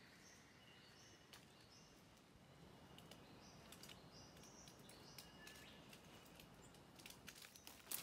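Very quiet rainforest ambience: a small bird gives short, high chirps again and again. Near the end, crackling and rustling of leaf litter and undergrowth being pushed through begins.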